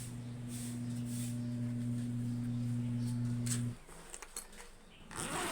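A steady low electrical hum that cuts off suddenly almost four seconds in, followed by a few light clicks and then rustling near the end.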